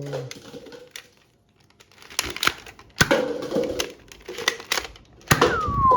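Plastic toy guns clicking and knocking as they are handled and fired: an irregular string of sharp clicks and clacks, with a short falling tone near the end.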